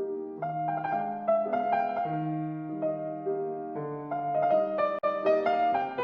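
Background piano music: a slow melody of sustained notes over held chords.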